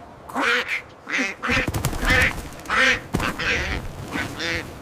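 A cartoon duck quacking over and over, a quick run of short, raspy quacks.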